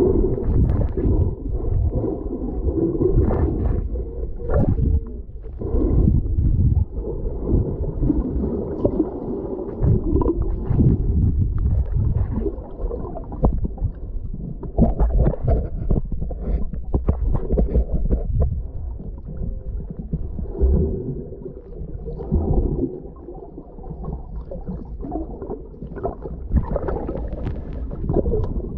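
Muffled underwater sound picked up by a submerged camera: a low rumble of moving water with gurgling, swelling and fading in irregular surges as the swimmer moves.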